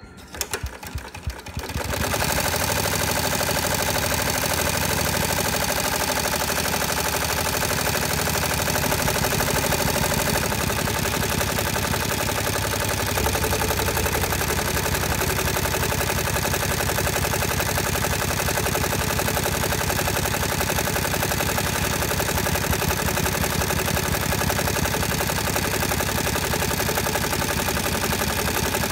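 Multi-needle embroidery machine sewing orange satin-stitch lettering into a quilted bag: a fast, even rattle of needle strokes that starts with a few slow stitches and comes up to full speed about two seconds in.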